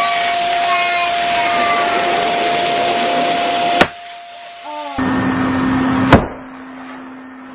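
Electric balloon air pump running with a steady whine, stopping with a sharp crack a little before four seconds in; it starts again and, about six seconds in, a louder sharp bang as the gold foil balloon being inflated bursts.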